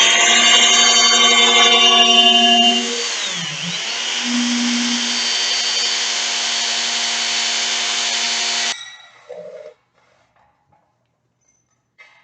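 Electric hammer drill running while boring into concrete, with a steady whine that is louder for the first few seconds and then settles lower; it stops about nine seconds in.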